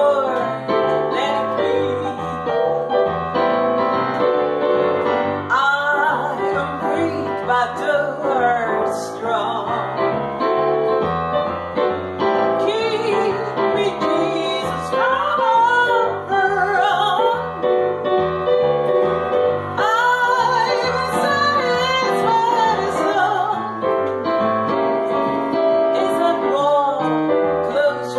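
A woman singing a song while accompanying herself on piano.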